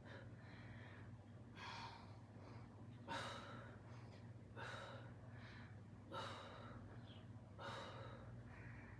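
A woman's heavy exhales, five of them about a second and a half apart, in time with the reps of alternating dumbbell gorilla rows. Under them is a steady low hum.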